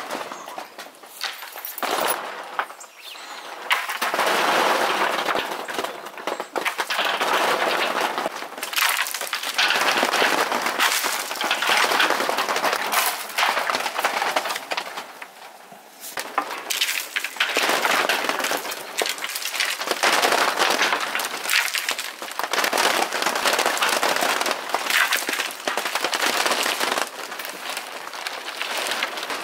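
A long pole beating the branches of a black hawthorn tree in repeated spells of several seconds, twigs cracking and rattling as berries and twigs rain down onto a plastic tarp.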